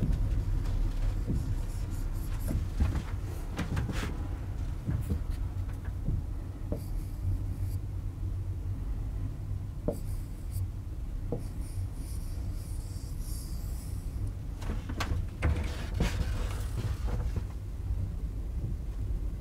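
Scraping strokes and light taps of a pen drawing on a board, over a steady low rumble of room noise.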